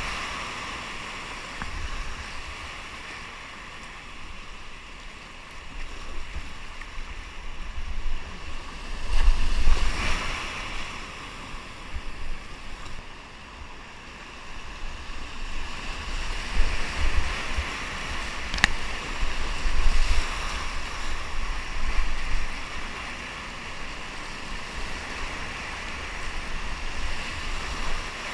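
Whitewater rushing over and around boulders, heard from a kayak running the rapid, with low buffeting on the microphone that swells up several times. A single sharp click about two-thirds of the way through.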